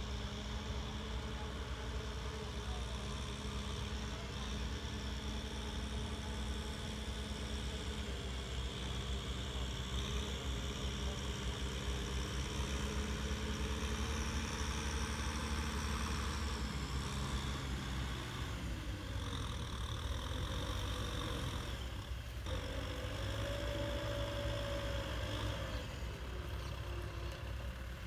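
Kubota M6040SU tractor's diesel engine running steadily as the tractor works a front blade through a flooded field. Its note shifts a couple of times past the middle.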